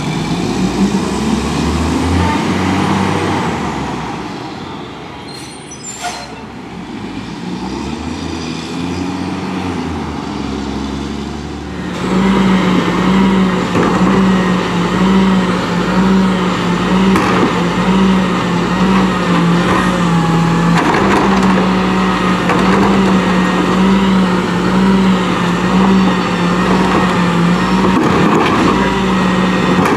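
Rear-loader garbage truck diesel engines. First a Leach rear loader's engine revs up and falls back, with a short sharp air hiss about five to six seconds in. About twelve seconds in it switches abruptly to a second rear loader's engine running louder and steady at raised revs, with a regular pulsing drone, as the crew tips carts into its hopper.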